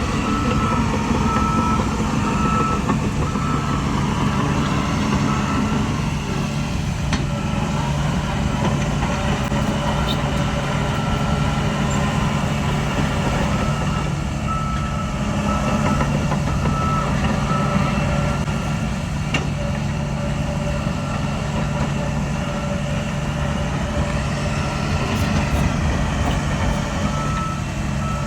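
Heavy diesel earthmoving machinery running steadily, with a reversing alarm beeping in evenly spaced high tones at the start, again in the middle and near the end.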